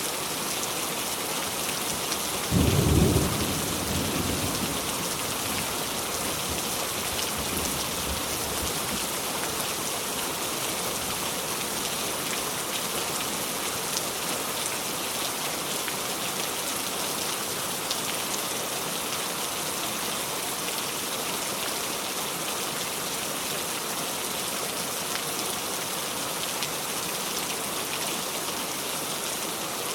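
Steady heavy rain hissing evenly. About two and a half seconds in, a sudden deep rumble cuts in, the loudest moment, and fades away over the next few seconds.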